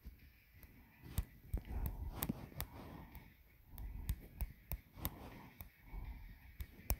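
Light, sharp clicks or taps, about two a second at an uneven pace, over soft low rumbling and faint breathy noise.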